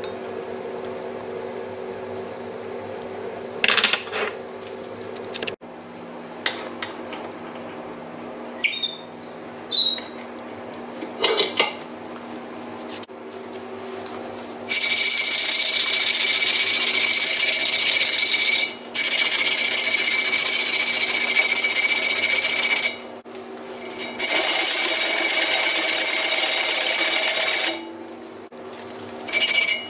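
Small electric power tool running in three spells of about four seconds with short pauses between, then starting again at the very end; a steady high whine rides over the noise of the work. Before that, halfway through, only a few light knocks of the cast-iron tool being handled.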